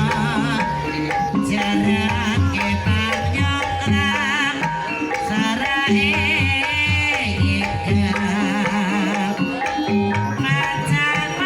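Banyumasan ebeg accompaniment music: a gamelan-style ensemble with steady hand-drum strokes, held tuned-percussion notes and a high, wavering melodic line over the top.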